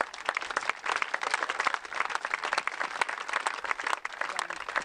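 Crowd applauding, a dense patter of many hands clapping that thins out near the end.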